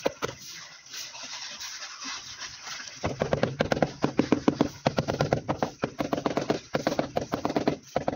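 A ceramic wall tile being worked by hand into notched tile adhesive: a soft rubbing at first, then from about three seconds in a fast, dense run of taps and scrapes.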